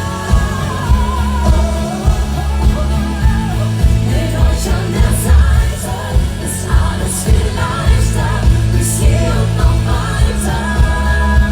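Live schlager-pop concert music: a band playing with a steady heavy beat and a wavering sung melody over it.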